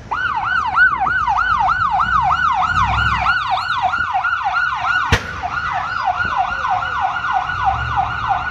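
Emergency vehicle siren on a fast yelp, rapid rising-and-falling sweeps about three to four times a second, starting abruptly and loud. A single sharp click cuts through it about five seconds in.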